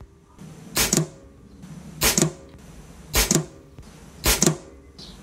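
A .177 Air Arms XTI-50 PCP air rifle firing H&N Baracuda FT pellets: four sharp shots, about a second apart.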